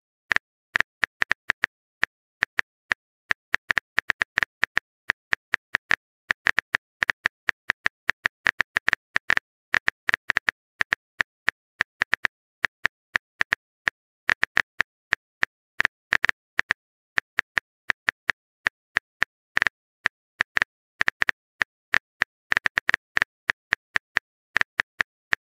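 Simulated phone-keyboard typing sound effect: a quick, uneven run of short clicks, several a second, broken by brief pauses.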